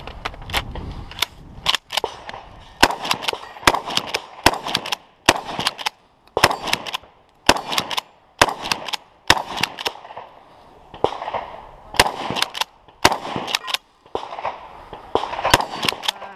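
Mossberg 590M magazine-fed 12-gauge pump shotgun firing a long run of shots, spaced from a few tenths of a second to about a second apart.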